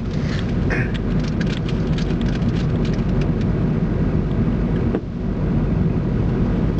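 Distant fireworks shells going off: scattered pops and crackles, with one sharper crack about five seconds in. Under them runs a steady low hum and rushing noise.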